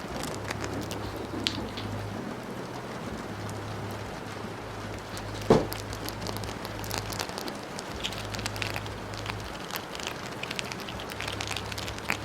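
Steady rain with a dense patter of individual drops, interrupted once about halfway by a single sharp knock that is the loudest thing heard.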